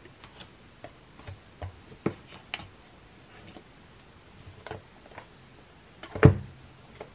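Hands handling a cardboard watch box on a wooden table: scattered light clicks and taps of fingers and pull tabs on the card, with one louder knock about six seconds in as the box is turned over.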